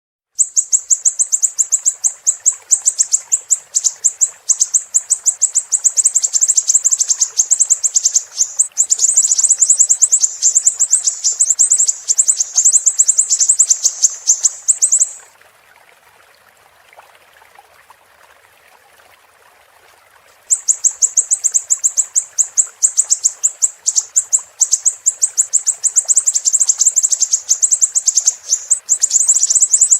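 Siri-siri bird singing a rapid, high-pitched chattering trill of many quick notes. It breaks off about halfway for roughly five seconds, leaving only a faint hiss, then starts again.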